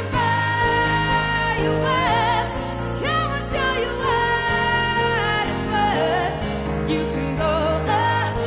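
Live band music: a woman singing long, wavering held notes with wordless runs over keyboards, drums and bass.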